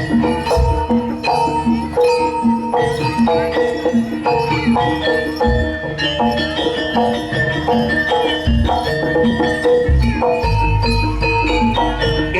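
Javanese jaranan ensemble music: pitched gong-chime notes play a fast repeating pattern over deep drum and gong strokes.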